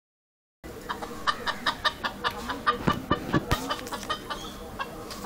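Domestic hens clucking in a quick, even series of short clucks, about five a second, starting about half a second in. A few low thumps come near the middle.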